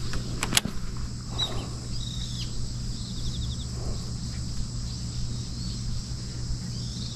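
Steady low outdoor rumble with a few faint high bird chirps and a short fast trill. Two sharp clicks come about half a second in.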